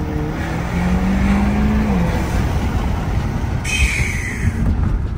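Audi 2.0-litre turbocharged engine accelerating, its note rising and then dropping as the throttle lifts. About three and a half seconds in comes a short hiss of the turbo's blow-off valve venting.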